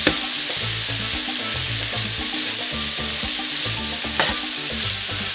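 Sliced onions and bell peppers sizzling as they sauté in butter and olive oil in a pan, with a utensil knocking against the pan twice, at the start and about four seconds in.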